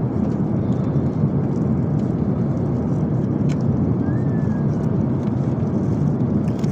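Steady, low cabin noise of an airliner in flight, with a faint click about three and a half seconds in.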